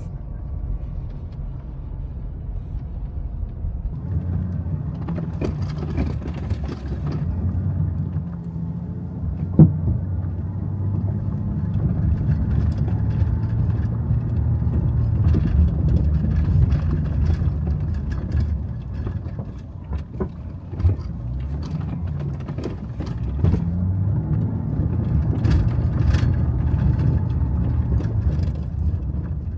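A vehicle driving: a steady engine and road rumble that grows louder about four seconds in, with scattered small clicks and one sharp knock about ten seconds in.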